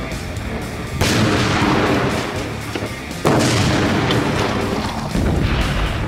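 Acetylene–oxygen gas explosion blowing apart a fridge, heard as three sudden booms, about a second in, about three seconds in and about five seconds in, each trailing off in a rumble over a couple of seconds, with music underneath.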